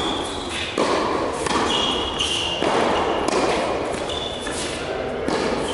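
Tennis ball being struck by a racket and bouncing on an indoor hard court during a rally: sharp hits and bounces about once a second, with short high squeaks of sneakers on the court surface, in a reverberant tennis hall.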